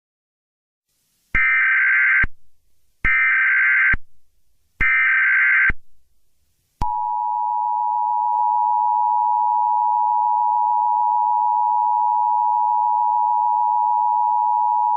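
Emergency Alert System tones: three short bursts of SAME digital header data, each just under a second, then from about seven seconds in the steady two-tone EAS attention signal, held for about eight seconds.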